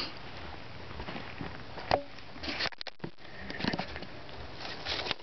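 Camera handling noise, with rustling, scraping and small knocks as the camera is picked up and moved. Near the middle, the sound briefly drops out.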